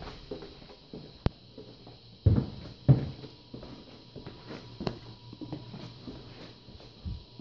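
Footsteps on a hard floor, irregular, with two heavier thumps about two and three seconds in and a sharp click just over a second in.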